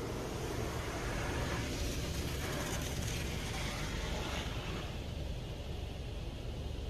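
High-pressure water jets of a PDQ LaserWash 360 touchless car wash spraying onto the car, heard from inside the cabin as a hiss over a low steady rumble. The hiss swells about two seconds in and eases after about five seconds.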